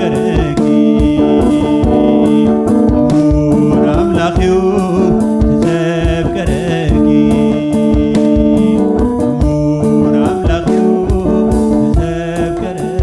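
A man singing a Tigrinya hymn over instrumental backing with a steady beat.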